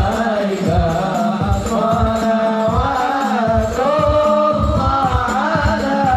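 A group of voices sings an Arabic devotional hymn (sholawat) in unison over a loudspeaker, with a steady drumbeat of about three low thumps a second.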